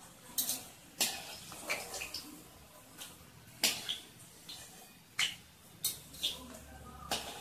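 Steel spatula and wire skimmer clinking and scraping against a steel kadai as deep-fried gatte are lifted out of the oil: about nine sharp, irregular clinks over a low sizzle of frying oil.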